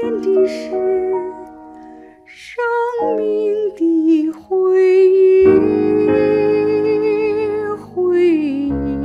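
A woman singing a slow Mandarin ballad with vibrato on long held notes over a soft backing track. The accompaniment grows fuller, with a deeper bass, about halfway through.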